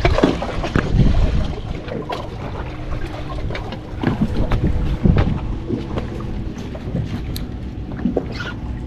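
Wind buffeting the microphone, heaviest in the first second or so, over a steady low hum and scattered light clicks.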